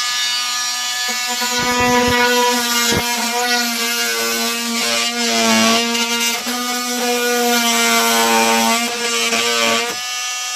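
Corded Dremel oscillating multi-tool running steadily with a high buzz, its flat blade cutting into a cabinet panel along a template line. The pitch sags briefly about five to six seconds in as the blade bites under load.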